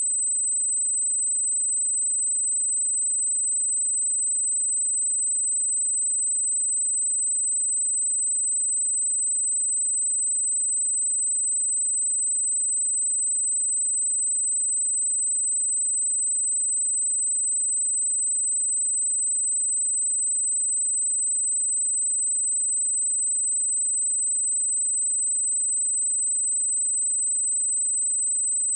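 A steady pure sine-wave test tone at 8088 Hz, a single high-pitched whistle held at constant loudness.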